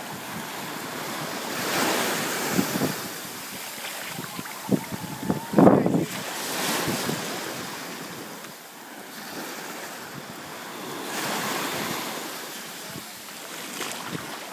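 Shallow surf washing up and draining back, swelling and fading in slow surges, with wind buffeting the microphone. A short loud thump comes about five and a half seconds in.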